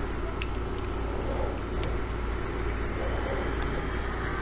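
Window air conditioner running with a steady hum and fan noise, with a few faint light clicks of pliers and small metal parts being handled.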